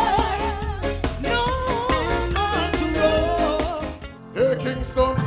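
Live band music with a woman singing lead over drums and guitar. About four seconds in it breaks off briefly and switches to another song, a man singing with a band.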